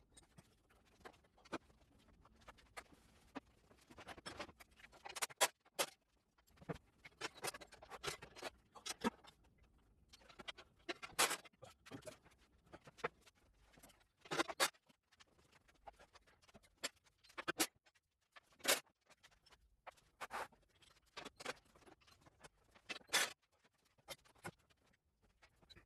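Irregular clinks, knocks and scrapes of hand tools and metal parts as a garden tractor is taken apart, with a few sharper metal knocks among the lighter clicks.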